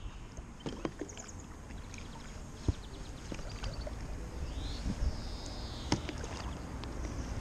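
Stand-up paddleboard paddle strokes: the blade dipping and splashing in calm river water, with drips and small splashes over a steady low wash of water against the board.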